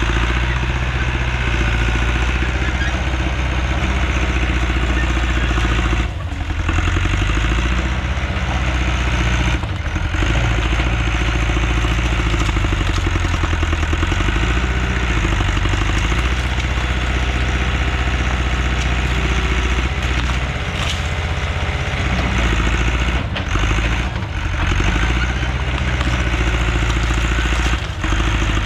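Heavy land-clearing machine's engine running loud and steady, its pitch rising and falling as the load changes, with a few brief dips in level.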